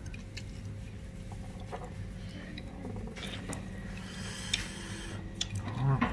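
Faint clicks and light scraping of wooden chopsticks against a clam shell as the topping is worked, over a steady low hum.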